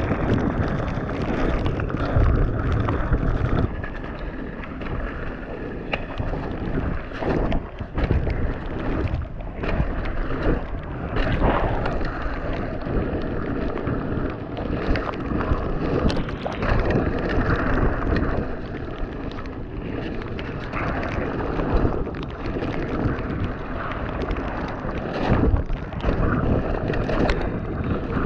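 Mountain bike riding down a wet, rough trail, heard from an on-bike action camera: wind buffeting the microphone over the rumble of tyres on mud and rock. The frame and suspension give frequent knocks and clatters over bumps.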